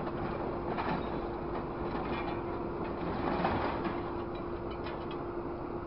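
Multi-tine scrap grapple closing on a pile of scrap metal, with metal clanking and scraping as it bites into the load, loudest about three and a half seconds in, over the steady hum of the grapple truck's engine and hydraulics.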